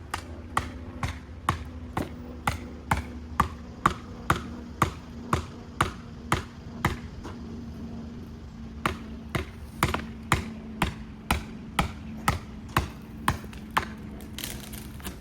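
Sharp, regular ticking about twice a second, pausing briefly midway, over a low steady hum.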